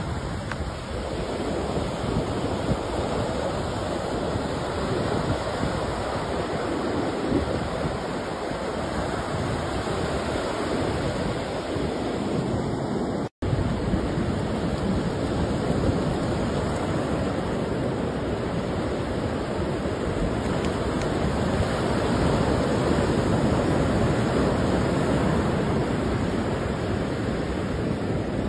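Ocean surf washing onto a sandy beach in a steady wash of noise, with wind rumbling on the microphone. The sound cuts out for an instant about halfway through.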